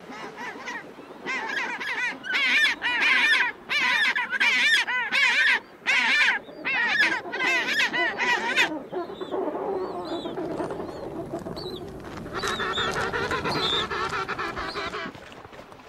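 Humboldt penguins braying: runs of harsh, honking calls in quick pulses, then a lower, rougher stretch and a long held call about twelve seconds in.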